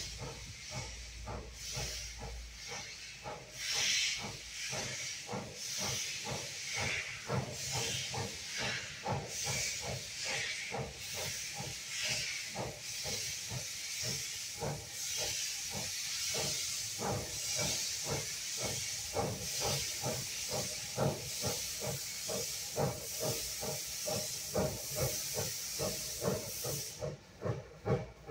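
1937 Porter 0-4-0T steam locomotive working slowly forward with its cylinder drain cocks open: a steady rhythm of exhaust chuffs with steam hissing from the cocks on each beat. The open cocks are blowing condensed water out of the cylinders.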